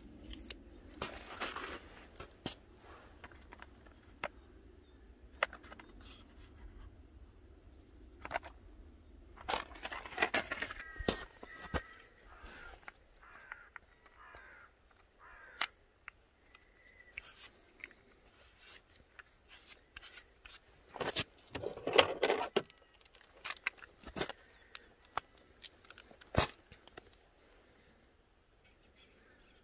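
Handling noises from work on a scooter's belt drive: scattered sharp clicks and short bursts of rubbing and scraping as parts such as the drive belt, a caliper and the variator pulley are picked up and moved, with the loudest rustle about two-thirds of the way in.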